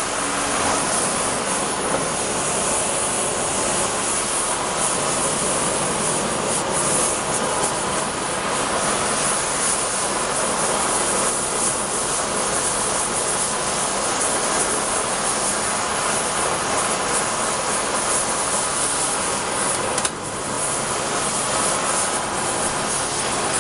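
Gas burner flame burning with a steady, even hiss, heating the steel, with a short dip about twenty seconds in.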